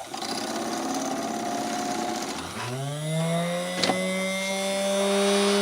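1912 Singer 24-7 chain stitch sewing machine running under an electric motor. About two and a half seconds in, its whine rises in pitch as it speeds up, then holds steady at high speed.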